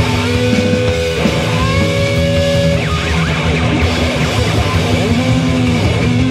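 Rock song with electric guitar, a line of long held notes over the full band.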